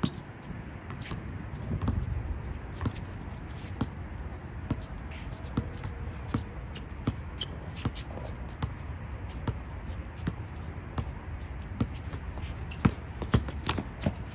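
Basketball game sounds: a ball bouncing and players' feet on the court, many irregular sharp knocks over a steady low rumble.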